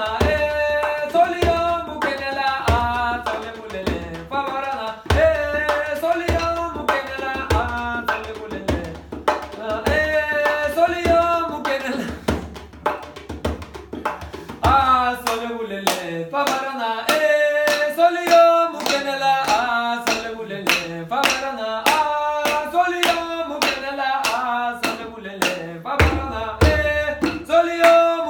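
A man singing a wordless melody over djembe hand drumming, with sharp slaps and deep bass strokes on the drum heads. The deep bass strokes drop out for about ten seconds in the middle while the lighter strokes carry on.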